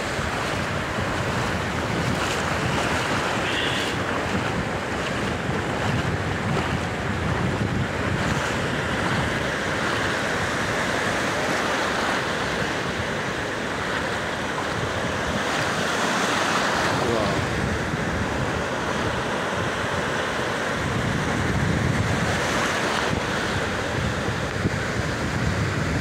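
Ocean surf breaking and washing through the shallows in a steady rush of noise, with wind buffeting the microphone.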